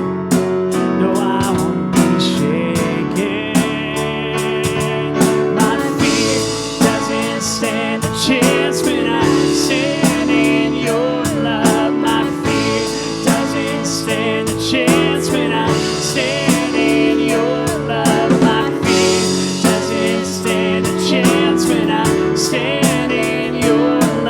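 Live worship band playing a song, with voices singing over the music.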